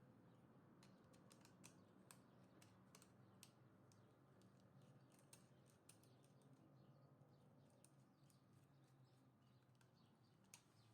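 Near silence: faint room tone with scattered small clicks.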